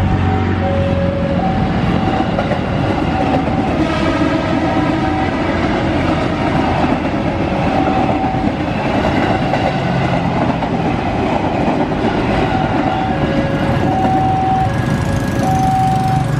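KRL electric commuter train running past over a level crossing: a steady rumble with clickety-clack from the wheels. A two-pitch tone sounds on and off over it.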